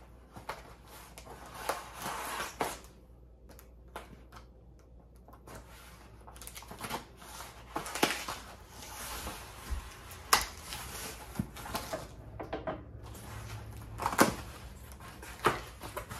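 A cardboard box being cut open with scissors and its packaging handled: scattered sharp clicks and knocks, with stretches of scraping and rustling.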